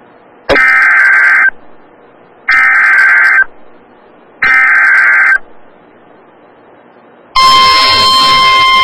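Emergency Alert System SAME header: three loud one-second bursts of screeching digital data tones, about two seconds apart, marking the start of a new alert. Near the end the steady single-pitch attention tone begins and holds.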